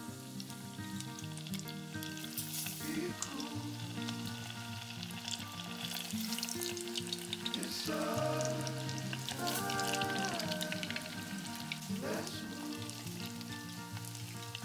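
Hot oil sizzling and crackling steadily as coated pieces of food deep-fry in a pot, with background music playing a melody over it.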